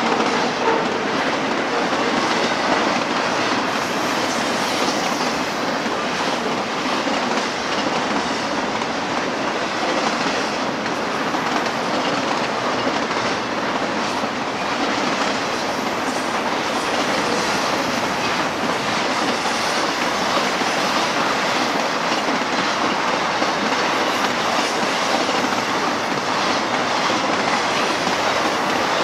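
BNSF double-stack container train's well cars rolling past: a steady, unbroken clatter and rumble of steel wheels on the rails.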